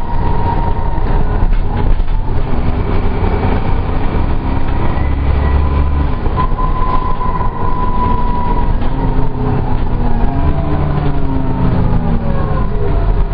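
Dennis Trident double-decker bus heard from the lower-deck saloon: its diesel engine running with a steady whine over the rumble, the pitch shifting up and down in the last few seconds.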